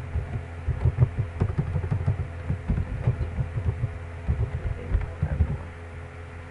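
Computer keyboard being typed on, heard as irregular dull knocks and thuds several times a second over a steady electrical hum.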